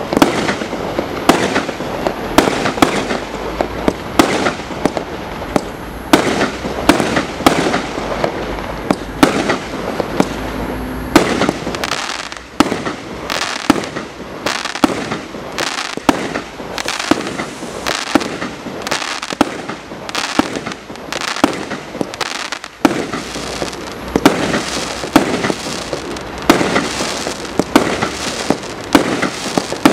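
A 100-shot, 1-inch consumer fireworks cake firing: one sharp shot or burst after another, about two a second, without a break.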